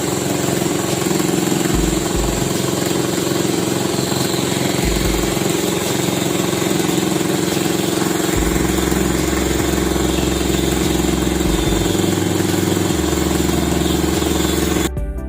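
An engine running steadily at an even speed, with a constant hum; it cuts off suddenly near the end.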